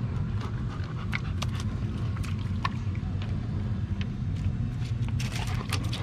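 Steady low rumble with scattered small clicks and taps from a dog stepping over beach pebbles and nosing at a food packet; the taps come more thickly near the end.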